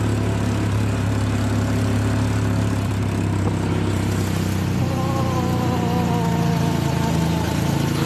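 Steady drone of a vehicle's engine heard from aboard an open-sided vehicle. From about five seconds in, a long wavering tone that falls gently in pitch rides over it.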